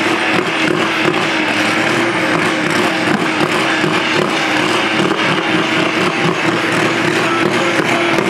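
Pulling tractor's engine running hard under load, a loud steady drone that holds an even pitch throughout.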